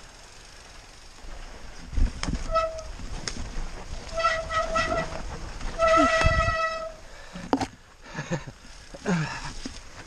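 Mountain bike brakes squealing in short bursts, one steady high pitch each time: once about two and a half seconds in, several times in quick succession around four to five seconds, and a longer squeal near six to seven seconds. Under them the bike rattles and thumps over the rough trail.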